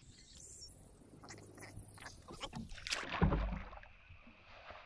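Handling noises of scrapes and knocks, with one heavy low thump a little past three seconds in.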